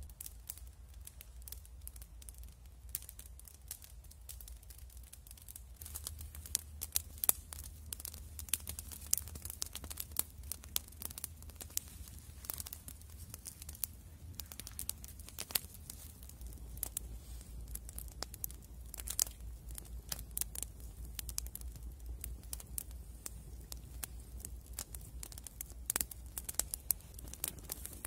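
Small wood campfire crackling with irregular sharp pops and snaps, mixed with the scraping and tearing of a wooden stick being worked by hand.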